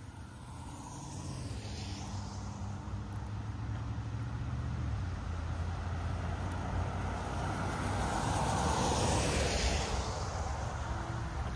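A passing engine: a steady low hum that grows gradually louder to a peak about eight or nine seconds in, then eases off.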